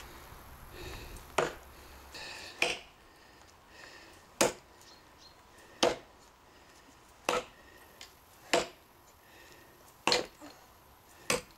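Cold Steel Trail Hawk tomahawk chopping into a hard, seasoned elm log: about eight sharp, evenly paced strikes, roughly one every second and a half.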